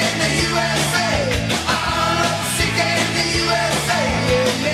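Rock music with a singing voice.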